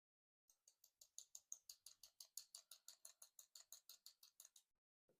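A quiet, quick, even run of small sharp clicks, about six a second for some four seconds, then one last click: small metal lock parts clicking as a lock is taken apart.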